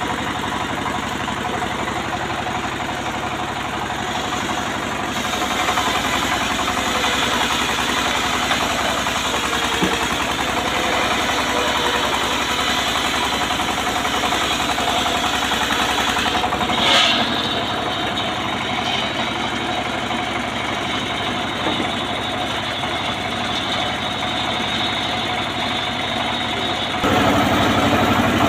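Homemade engine-driven sawmill running steadily while it saws a teak log lengthwise. There is a single brief sharp sound about seventeen seconds in, and the machine gets louder and lower in pitch near the end.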